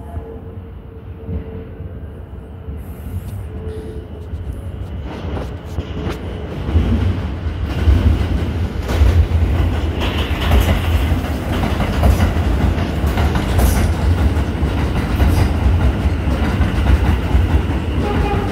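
New York City subway train running on elevated track, its wheels clattering over rail joints and switches. It grows much louder about six to seven seconds in and stays loud as the cars pass close by.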